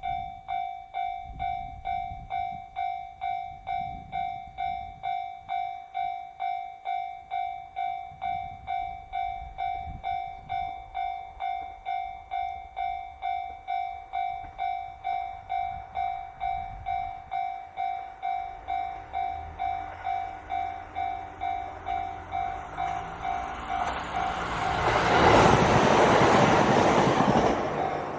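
Japanese level-crossing warning bell ringing steadily at about two strikes a second. In the last few seconds a diesel train passes over the crossing, much louder than the bell.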